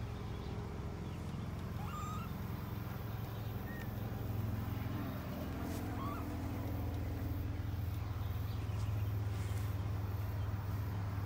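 A few brief, faint mews from 3–4-week-old kittens over a steady low hum.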